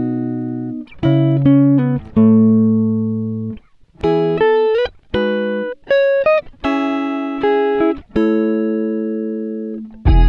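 Background music on guitar: plucked notes and chords, each ringing out and fading before the next, a few sliding up in pitch.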